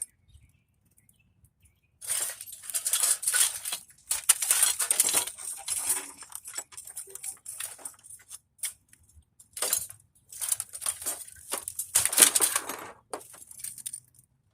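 Metal scrap parts clinking and rattling in irregular clusters as they are worked loose and pulled out by hand, starting about two seconds in.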